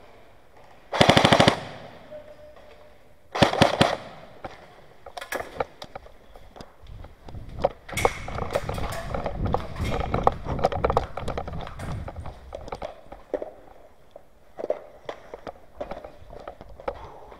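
Airsoft gun firing two short full-auto bursts of rapid clicking shots, about a second in and again about three and a half seconds in. Afterwards come scattered clicks and scuffling, loudest in the middle.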